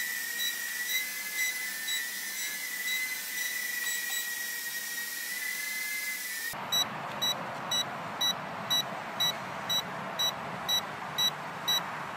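Furibee H801 mini quadcopter hovering: a steady high motor whine that wavers slightly, with a short beep about twice a second, the very annoying beep it gives in headless mode. About six seconds in, the whine cuts off suddenly and the beeping goes on louder over a steady rushing noise.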